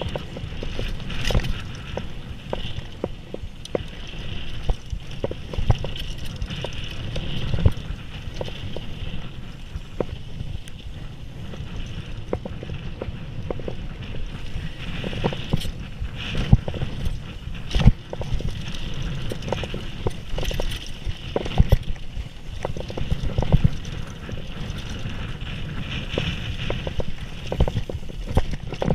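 Mountain bike rolling fast down a dirt trail: steady tyre rumble on the ground with frequent, irregular sharp knocks and rattles as the bike hits bumps and roots.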